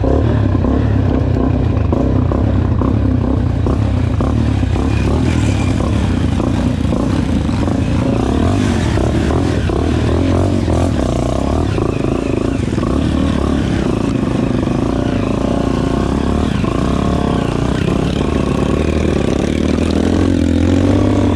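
Honda XRE 300 single-cylinder motorcycle engine running while riding, its note rising and falling with the throttle, with some clatter.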